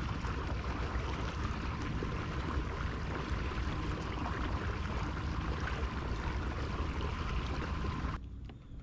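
Steady rush of water and wind noise as a pedal-driven fishing kayak moves across the lake, cutting off abruptly about eight seconds in.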